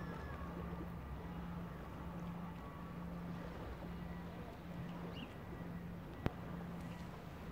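Outdoor background with a low hum that pulses on and off about once a second, and a single sharp click about six seconds in.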